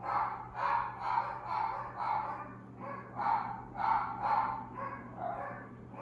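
An animal calling over and over in short harsh calls, about two a second, keeping up the whole time.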